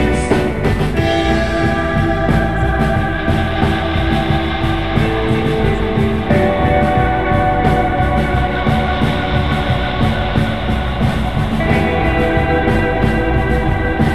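Background rock music with sustained guitar chords that change every few seconds.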